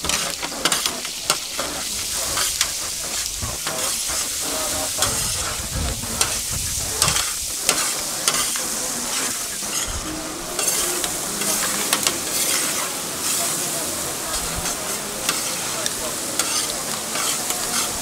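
Seafood and sliced peppers sizzling in oil in a wide paella pan, with a metal spatula scraping and clinking against the pan many times as the food is stirred and turned.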